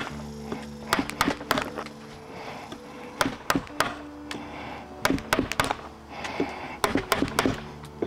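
A wooden mallet striking a carving chisel into a solid-wood mask blank, each blow a sharp knock as chips split from the wood. The blows come in short runs of three or four, with pauses of a second or more between runs.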